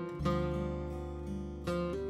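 Background music: acoustic guitar strumming held chords, with a new chord struck shortly after the start and another just before the end.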